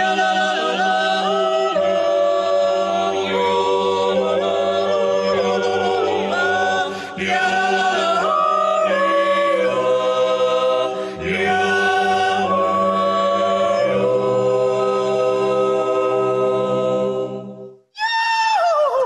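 Unaccompanied Swiss yodeling: several voices sing in harmony over held low notes. The singing breaks off about 18 seconds in, and a high, wavering, gliding voice begins just before the end.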